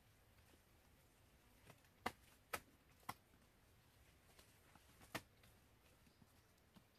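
A near-silent background broken by a few short, sharp cracks: three close together about two to three seconds in and one more about five seconds in. These are bare feet snapping dry twigs in leaf litter.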